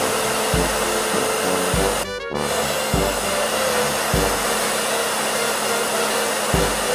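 Hair dryer blowing steadily, cutting out briefly about two seconds in, over background music with a low note repeating about once a second.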